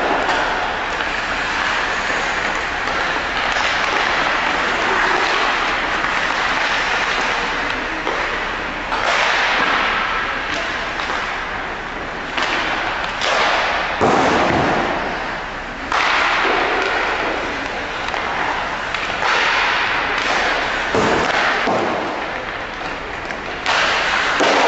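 Indoor ice hockey rink: a steady scraping hiss of skates on the ice, broken by occasional thuds of pucks, sticks or players against the boards, with voices echoing in the arena.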